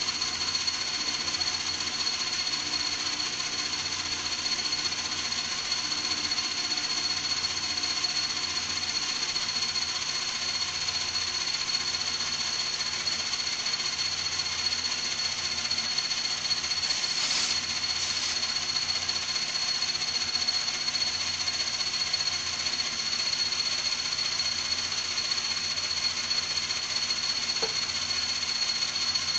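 An old metal lathe running steadily while turning down a steel shaft, with a constant high whine over a low hum. The machine is a little loud, and there is a short brighter hiss about 17 seconds in.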